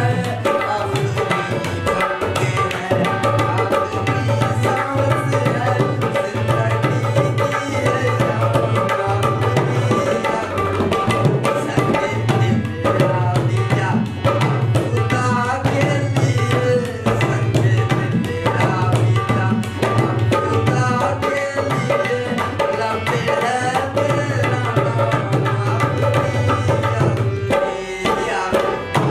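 Instrumental passage of a ghazal: a harmonium plays the melody over steady tabla-style hand-drum strokes.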